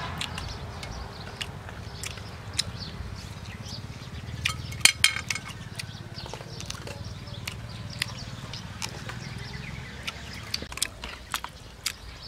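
Close-up eating sounds of stir-fried snake being picked at and chewed, with scattered sharp clicks of plastic chopsticks against the plates. The loudest is a quick clatter about five seconds in, as the chopsticks are put down on the plate.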